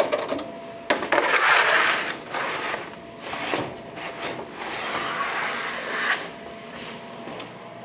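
Long wooden bread peel scraping along a deck oven's baking floor as it is pushed under loaves that are sticking to the deck, in two long scrapes about a second and four seconds in, with a few knocks of the peel between them.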